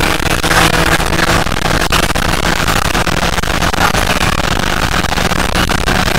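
BMW E46 M3's S54 inline-six pulling hard at full throttle high in the rev range, from about 6,500 to 7,300 rpm, its pitch climbing slowly, heard from inside the cabin.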